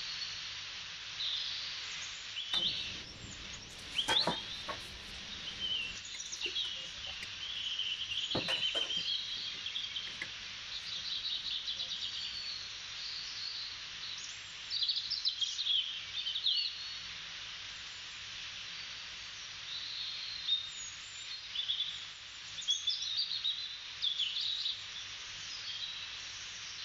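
Many birds chirping and trilling over a steady hiss, from a recorded nature-sound birdsong track, with a few louder calls in the first third.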